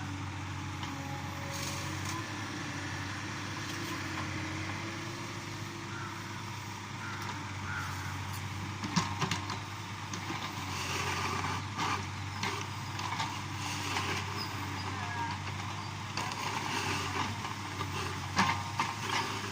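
Heavy machinery's diesel engine running steadily with a low hum, joined from about nine seconds in by a series of short knocks and clanks, the loudest near the start of them and near the end.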